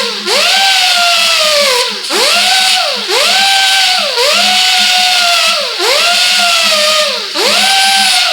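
High-revving power tool under varying load: its pitch drops, jumps back up and then sags slowly, over and over about every second and a half.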